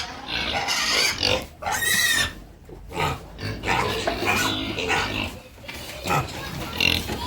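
Pigs squealing in a string of short, high cries.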